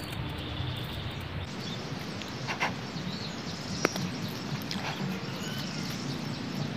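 Steady outdoor background noise with a few faint short scrapes and one sharp click about four seconds in, from a small knife peeling the charred skin off a fire-roasted wild potato.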